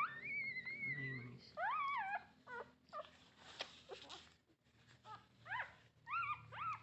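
Newborn puppies whimpering and squealing for milk from their mother: one long high whine at the start, then a string of short, high cries that rise and fall in pitch.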